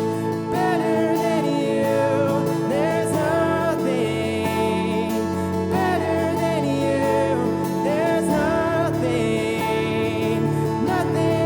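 Christian worship song: a voice singing a melody over steady held instrumental chords.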